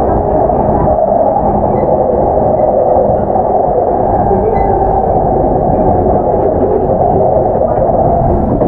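Steady running noise inside an E233-7000 series electric commuter car (a Mitsubishi IGBT VVVF motor car): a continuous low rumble of wheels, motors and track while the train runs between stations.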